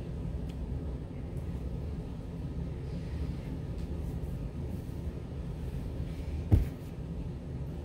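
A steady low rumble, with a single sharp knock about six and a half seconds in.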